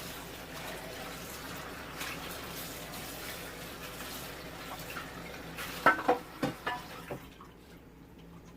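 Kitchen tap running into a porcelain sink while dishes are washed. A few clinks of dishes about six seconds in, then the water goes quieter near the end.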